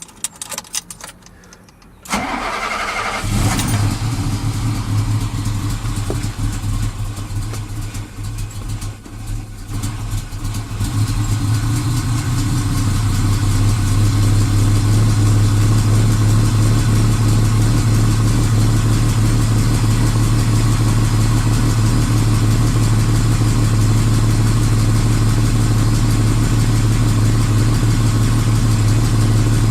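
BMW M1's M88 3.5-litre DOHC straight-six, with Kugelfischer mechanical fuel injection, starting from cold. After a few light clicks it cranks briefly about two seconds in and catches at once, runs with a wavering note for several seconds, then settles into a steady, even idle from about twelve seconds in. Starting at once without the gas pedal is the sign of a cold-start injection system in good working order.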